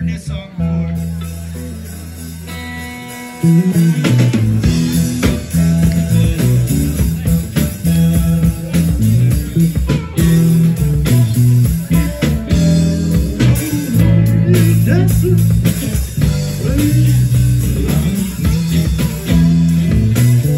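Live band with electric guitars and a drum kit: a held chord rings for the first few seconds, then the full band comes in loud about three and a half seconds in and plays on.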